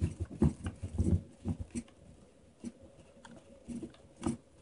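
A PVC potato gun's threaded barrel being twisted off its chamber: a run of short, irregular plastic knocks and scrapes, many in the first two seconds and then a few scattered ones.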